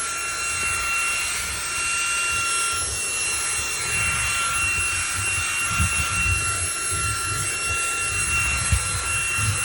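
Eufy H30 handheld cordless vacuum running on its max setting: a steady high motor whine over a rushing hiss of suction. Irregular low bumps and rumbles run under it throughout.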